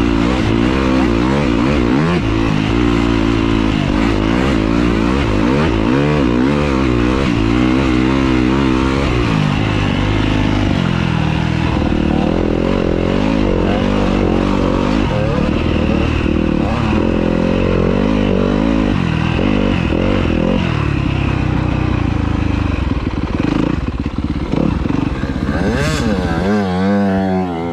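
Yamaha YZ250F dirt bike's four-stroke single-cylinder engine running close up under the rider, revving up and falling back again and again as he rides. A quick rising rev comes about 26 seconds in, and the engine eases off right at the end.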